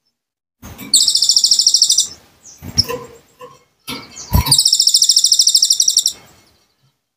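A konin, a small songbird, singing two long, rapid, high-pitched trills, each lasting over a second, with a few short chirps between them.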